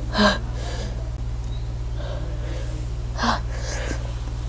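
A woman gasping and breathing hard through her open mouth from the burn of extra-spicy noodles, with one short sharp gasp just after the start and another about three seconds in. A steady low hum runs underneath.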